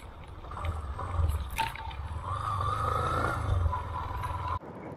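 Motorcycle engine running as the bike rides along, heard as a steady low rumble with a faint wavering whine in the middle; the sound cuts off abruptly near the end.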